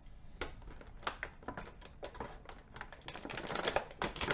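Plastic packaging and twist ties being worked loose by hand: a run of small clicks and crinkles, busier near the end.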